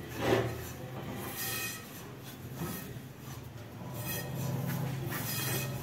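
Hands rubbing flour and melted butter together in a ceramic bowl, a few soft swishing rubs over a steady low hum.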